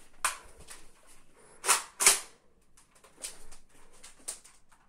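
Pump-action toy blaster being worked and fired: a handful of sharp plastic clacks and snaps, the loudest two close together about two seconds in.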